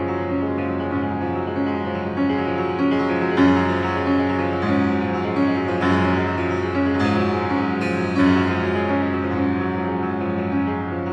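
Instrumental piano music: a run of short repeated notes over sustained low tones.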